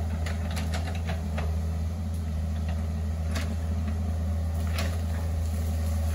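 Hitachi ZX48U mini excavator's diesel engine running steadily at a low hum. Scattered sharp clicks and snaps sound over it as the bucket works through the undergrowth.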